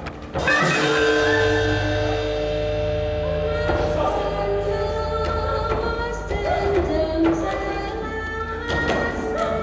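Theatre accompaniment music with singing, starting with a sudden loud stroke about half a second in, then long held tones over a low steady drone.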